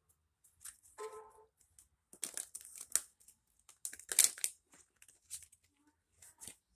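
A deck of tarot cards being shuffled and handled: irregular papery rustles and snaps, the loudest about four seconds in.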